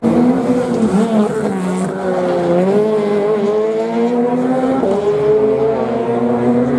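Rally car engine running hard, its pitch climbing and dropping repeatedly with the throttle and gear changes, with a sharp drop about five seconds in.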